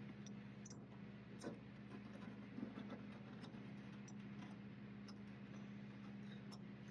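Faint, scattered light ticks of a steel scribe against a sheet-steel fender patch panel, over a steady low hum.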